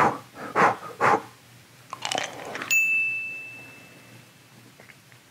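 Mouth noises as a handful of hard sour candies is taken in and worked in the mouth, in a few short noisy bursts. About two and a half seconds in, a bright bell ding sound effect rings out and fades over about a second and a half.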